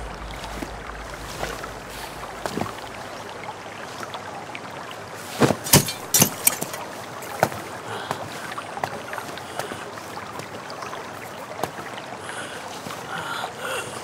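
Fight sound effects from a kung fu film: a quick cluster of sharp strikes and hits about halfway through, then a few lighter hits, over steady background noise.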